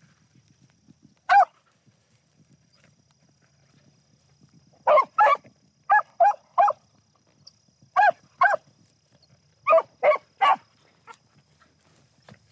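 Beagle hounds barking on a rabbit's trail: short sharp barks, a single one, then quick groups of two or three.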